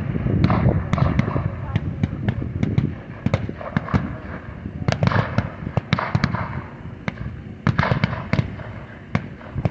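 Small-arms gunfire from reenactors firing blanks: many sharp, irregular shots, single cracks and short clusters, some close and loud, others further off.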